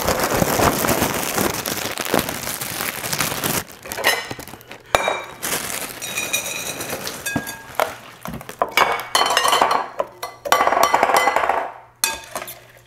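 Plastic cereal bag rustling as it is pulled open, then puffed cereal pouring into a glass bowl, the pieces clinking and ticking against the glass. The rustling runs for about the first three seconds, then the clinking comes in patches, with a longer pour near the end.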